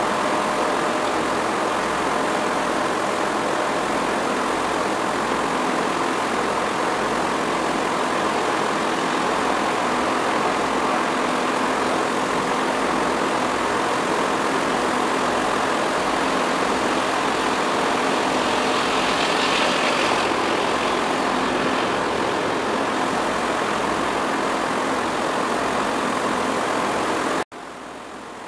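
Steady drone of ship and harbour engines and machinery, with a faint hum running through it. It drops abruptly to a much quieter level about a second before the end.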